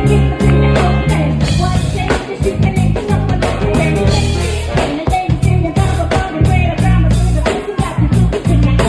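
A band playing a song with drums, guitar and bass, with singing over it.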